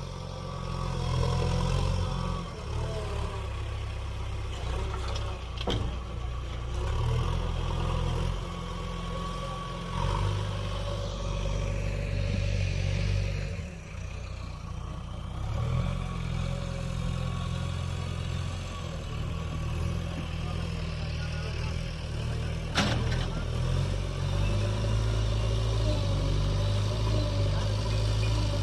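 Heavy-machinery diesel engine running steadily with a deep drone, easing off briefly about halfway through before picking up again. Two sharp clicks stand out, one about six seconds in and one near the end.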